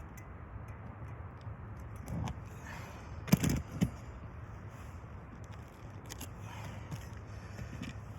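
Handling knocks over a steady low hum: a soft knock about two seconds in, then a sharp knock and a smaller one just after it about three and a half seconds in.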